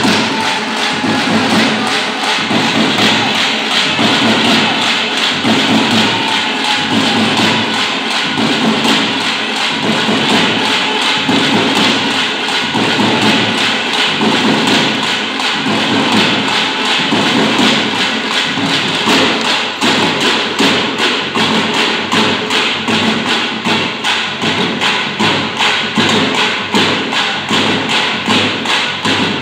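Large Tamil folk frame drums (thappu) beaten with sticks in a fast, driving folk rhythm. The beat becomes sharper and more even over the second half.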